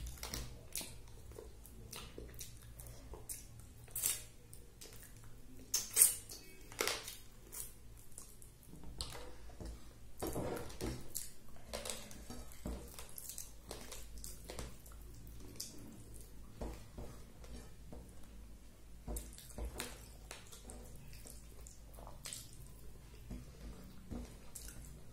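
Eating rice by hand from a plate: fingers scraping and gathering rice against the plate, with wet chewing and mouth sounds close to the microphone. The sounds come as scattered short clicks and smacks, the loudest a few seconds in.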